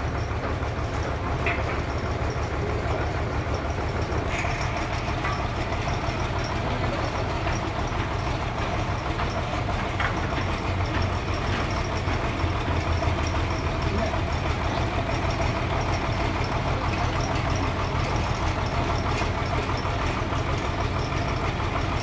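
Band sawmill's drive running steadily with a low, even drone, the blade not cutting, with a few light clicks.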